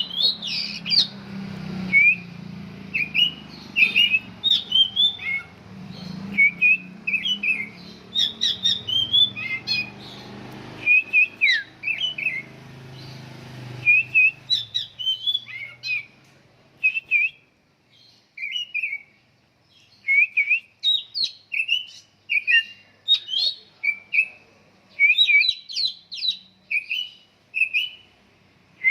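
A songbird singing: a long run of short, quick, sweeping chirps and whistles, repeated again and again. A low background hum sits under the first half and fades out about halfway through.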